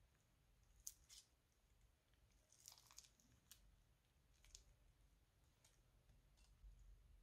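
Faint, sparse sticky clicks and pops from thick, glossy slime being stirred, lifted and folded.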